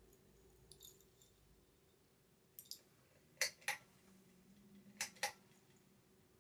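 Hampton Bay Glendale ceiling fan running with a faint steady hum. Sharp clicks come in pairs about a quarter second apart, three times; the middle and last pairs are the loudest.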